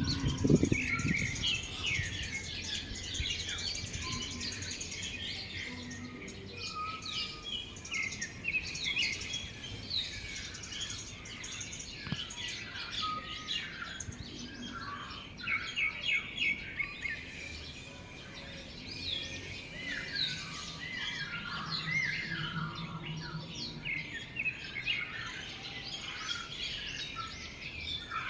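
A chorus of many small birds chirping and calling at once: dense, overlapping short high chirps and quick rising and falling notes, continuing without a break.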